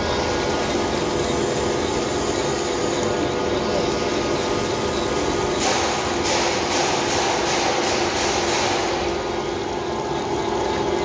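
Metalworking machine running steadily under load with a constant hum and whine as a threaded steel rod is worked through it. From about halfway, a rhythmic hissing scrape comes in for a few seconds at about two to three strokes a second.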